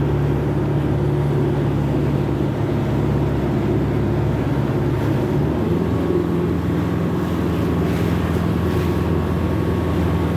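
Old boat's engine running steadily, its note shifting slightly about five and a half seconds in.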